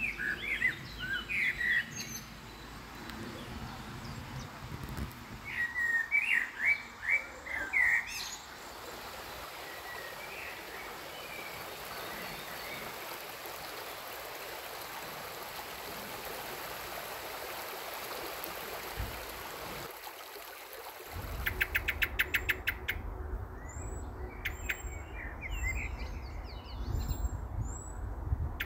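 Songbirds singing in short phrases, then the steady rush of a shallow stream running over stones. Later a low rumble sets in, with a rapid trill and more bird chirps over it.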